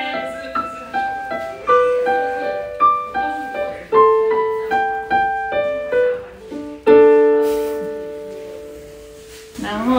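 Digital piano played by hand: a melody of single notes over chords, ending on a held chord about seven seconds in that fades away.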